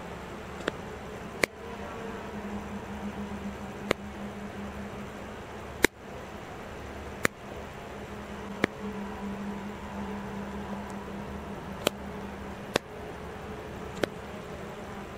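A camera's shutter-speed and ISO dial wheel clicking through its detents as the settings are changed: about nine sharp single clicks, irregularly spaced a second or two apart, the loudest about six seconds in. A steady low hum runs underneath.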